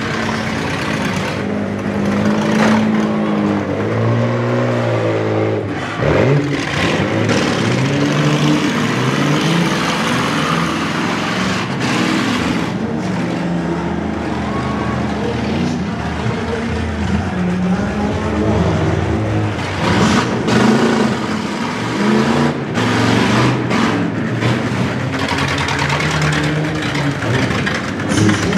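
Demolition derby pickup trucks' engines revving hard, their pitch rising and falling again and again as they accelerate around the dirt arena. Several sharp bangs of the trucks colliding cut in along the way.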